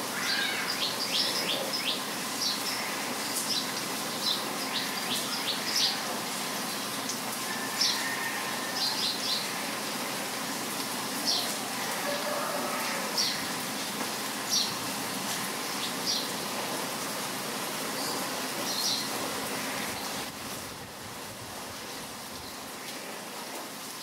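Steady rain with small birds chirping over it: short, high chirps, some in quick runs of several, thinning out and stopping about three quarters of the way through. The rain drops a little in level near the end.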